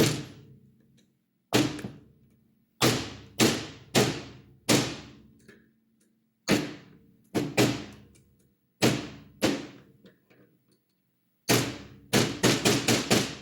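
A hammer striking repeatedly, driving parts into a 3D-printed plastic paintball trigger frame: single blows a second or so apart, then a quick run of strikes near the end.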